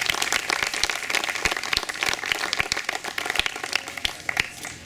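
Crowd of spectators clapping, applause greeting a swimmer who has just been introduced; the claps thin out and fade near the end.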